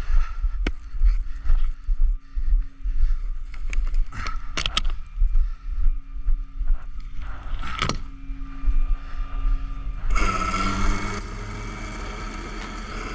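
Gusty low rumble of wind on the microphone, with scraping and sharp clicking handling noises and a faint steady hum. Background music starts about ten seconds in.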